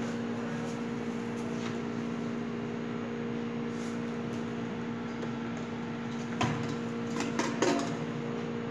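Steady low hum of kitchen equipment, with a few sharp clinks and knocks of kitchenware about two-thirds of the way through as a stainless-steel mixing bowl is handled.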